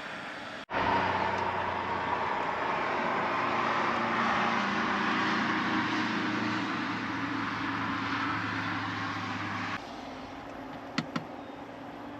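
Steady mechanical running noise with a low hum, starting abruptly about a second in and cutting off abruptly a couple of seconds before the end, followed by two light clicks.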